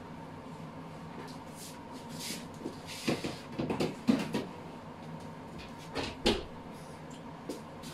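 Oven door opened and a metal baking tray slid in, with a cluster of knocks and clatters about three to four seconds in, then the door shut with two sharp knocks about six seconds in. A steady low hum sits underneath.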